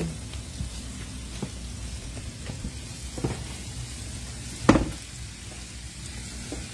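Food sizzling as it fries in a pan, a steady hiss broken by a few sharp clicks, the loudest about two-thirds of the way through.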